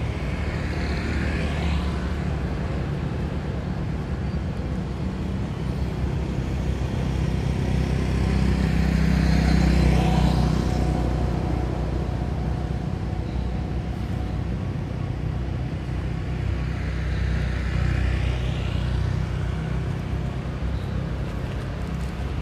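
Road traffic: a steady low rumble with vehicles passing three times, the loudest about halfway through.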